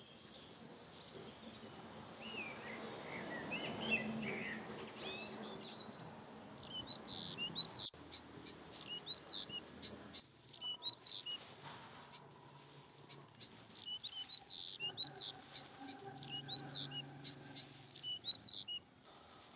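Small birds chirping: bursts of short, high, downward-sweeping notes repeated several times a second, with a low background hum. The chirping grows more regular about seven seconds in.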